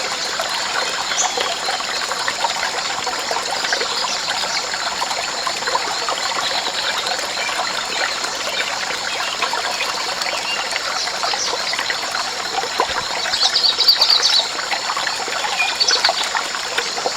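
Water trickling in a steady stream, with steady high-pitched tones and small chirps over it.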